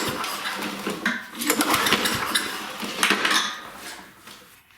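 Tecumseh 6.5 hp mower engine being pull-started with its recoil starter, cranking over in repeated rattling surges without catching, then falling away.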